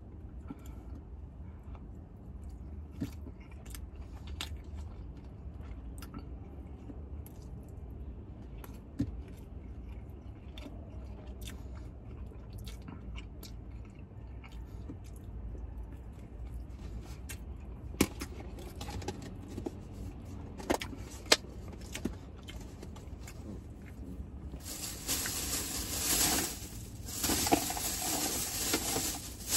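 Someone eating Panda Express takeout in a car: scattered clicks and taps of a utensil and the food container, with chewing, over the car's low steady hum. About five seconds before the end a louder rustling starts and comes in stretches.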